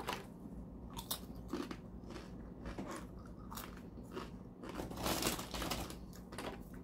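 Corn chips being bitten and chewed, a series of crisp crunches, the loudest about five seconds in.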